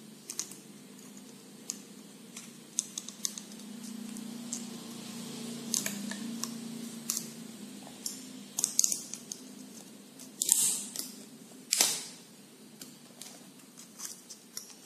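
Light clicks, ticks and plastic crinkling as a steel piston ring is worked by hand over thin plastic strips onto a Royal Enfield Bullet piston, with two louder scraping rustles about two-thirds of the way through. A faint low hum runs underneath.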